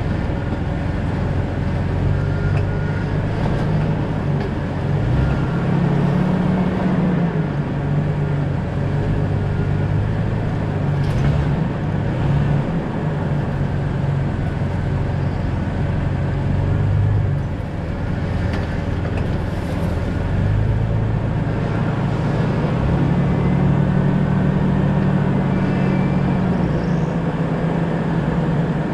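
2000 Jeep Cherokee XJ driving with its engine running, the engine note rising and falling with the throttle over a steady rumble of tyres on the road. The engine eases off briefly a little past the middle, and there are a few faint knocks.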